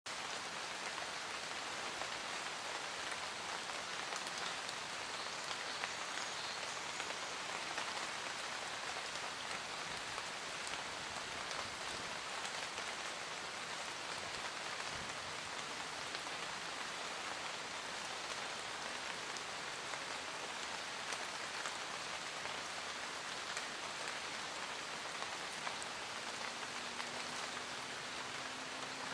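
Steady rain falling on a surface, a continuous even hiss with fine scattered drop ticks.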